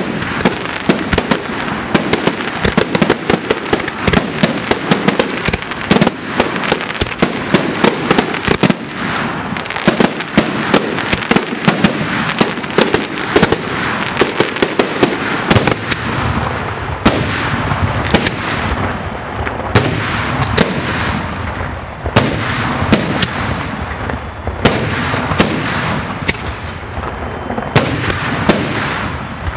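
Aerial fireworks display: a dense, rapid barrage of shell bursts and crackle that thins out about halfway through into separate loud bangs roughly a second apart.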